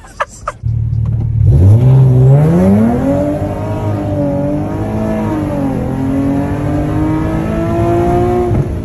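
Car engine under hard acceleration, heard from inside the cabin: after a low steady run the revs climb steeply, hold high, dip briefly a little past halfway, then climb slowly again until the sound cuts off near the end.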